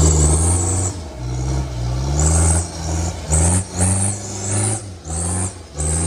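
Off-road vehicle's engine revved hard in a series of short bursts, about six or seven, its pitch rising in each.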